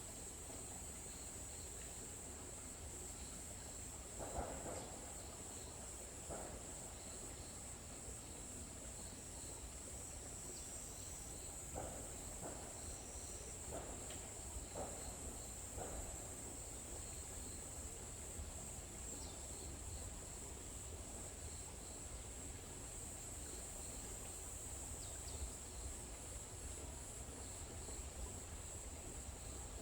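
Forest ambience: a steady high-pitched drone of insects, with faint repeated chirps and a few soft short sounds in the first half.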